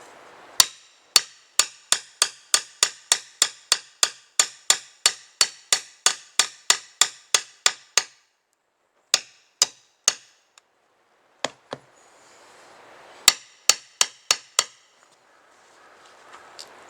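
Hammer driving nails into deck boards: a long run of steady blows, about three a second, each with a slight metallic ring. Then come a few scattered strikes and a final quick burst of about six.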